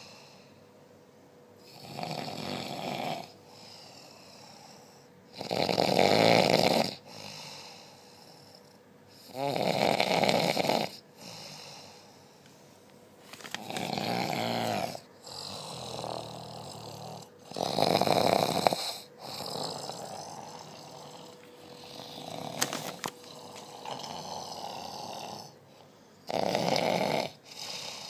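A man snoring loudly in his sleep: about six loud snores, mostly about four seconds apart, with quieter breaths between.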